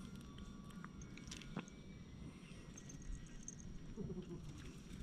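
A cat gives a short, low call that falls in pitch about four seconds in, over faint ticks and rustling from the hand stroking the cats.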